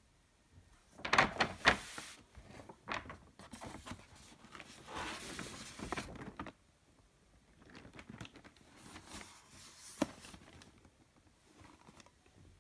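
Paper shopping bag rustling and crinkling as a cardboard shoebox is lifted and slid out of it, in several bursts, with one sharp knock near the end.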